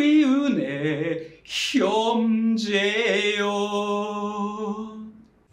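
A man singing unaccompanied: a short falling phrase, a brief breath, then one long held note with a slight waver that fades out near the end.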